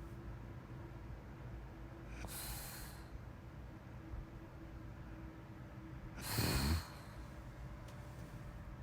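A sleeping person breathing slowly and snoring: a soft breath about two and a half seconds in, then a louder, rattly snore about six seconds in.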